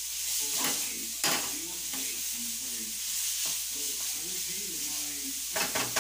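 Ground pork frying in a nonstick wok, a steady sizzle, while a spatula stirs it. The spatula clicks against the pan a little over a second in, and a few more times near the end.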